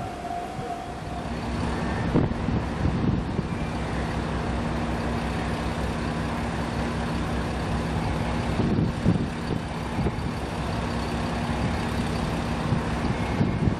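Diesel railcar engine, of a KiHa 185 series express train, running steadily: a low drone with a steady hum. A steady tone cuts off about half a second in.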